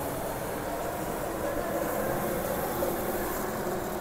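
Steady rush of riding along a road in traffic, with a faint hum of motors running under it.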